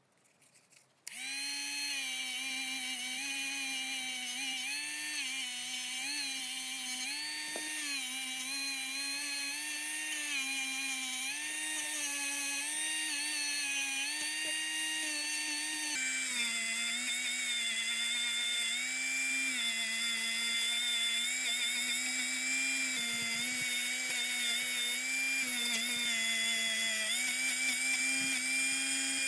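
A small high-speed rotary tool starts about a second in and runs steadily, its whine dipping and recovering slightly in pitch as it is worked against the part.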